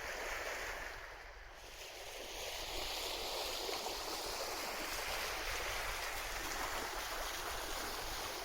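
Water rushing along the hull of a sailing yacht under way, with wind on the microphone; the rush grows louder about two seconds in.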